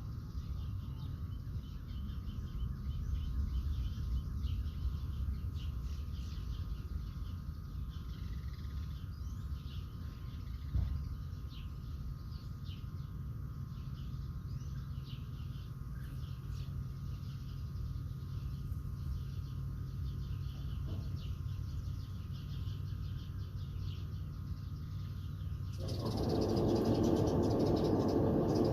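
Birds chirping over a low steady outdoor rumble. Near the end a louder steady rush of air starts suddenly: the clothes dryer switched on and blowing air out through the vent.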